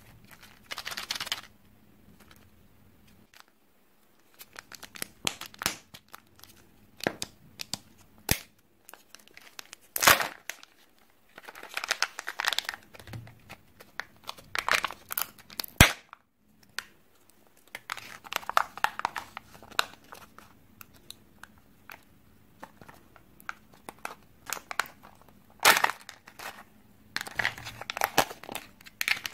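Kinder Joy plastic egg capsules being handled and opened: bouts of crinkling and tearing as the wrapper and the thin plastic seal are peeled back from the toy compartment. A few sharp clicks of the plastic shell come in between, the loudest about ten and sixteen seconds in.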